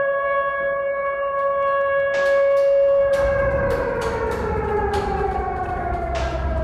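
A siren-like tone, held steady, then sliding slowly down in pitch from about three seconds in, as a low rumble builds beneath it. From about two seconds in, several short, sharp bursts of hissing noise cut in at irregular intervals.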